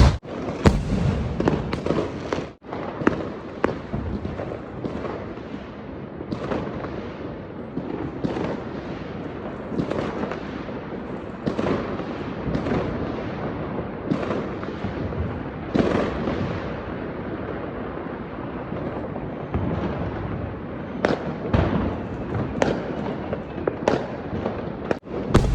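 Fireworks going off: an irregular, closely spaced run of bangs and pops, several a second, over a continuous crackle.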